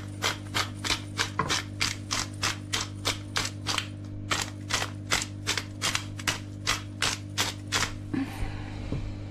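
Hand-twisted grinder top on a jar of five-pepper mix grinding peppercorns, its mechanism clicking about three times a second for some eight seconds before stopping.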